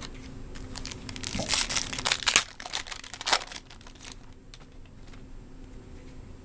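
Crinkling and rustling of a trading-card pack wrapper and cards being handled. It is busiest and loudest over the first three and a half seconds, then fades to occasional light rustles.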